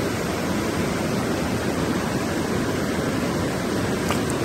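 Creek water rushing steadily over and around boulders in a small mountain stream.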